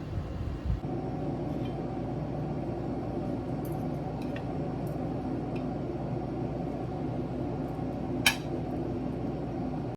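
Steady room hum with a few faint clinks and one sharper clink, like glass or dishware, about eight seconds in.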